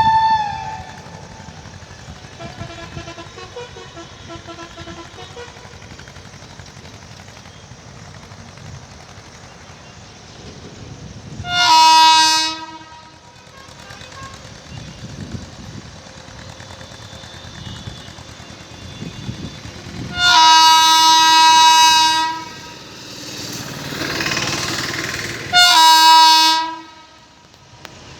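WAP7 electric locomotive's horn sounded in three loud blasts, the middle one longest at about two seconds, over the steady rumble of a departing train. A fainter, more distant horn sounds a few seconds in.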